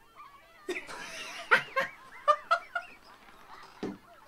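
Two men bursting into loud laughter about a second in, in a string of rapid breathy bursts, with a thump near the end.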